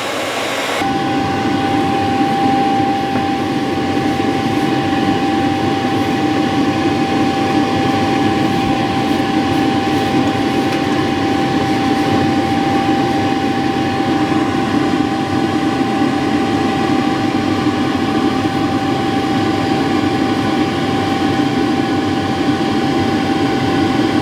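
Handheld hair dryer blowing steadily on a wooden bowl to dry freshly applied lacquer sanding sealer: a constant whine over a rush of air. The sound changes just under a second in, becoming deeper, then holds steady.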